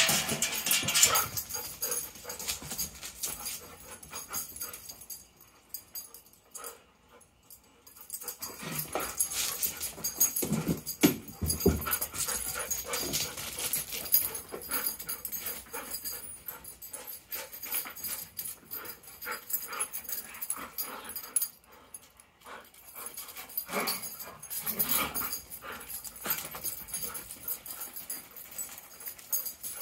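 Two dogs playing rough together: dog sounds mixed with scuffling and many irregular short clicks and knocks. It goes quieter for a couple of seconds about six seconds in.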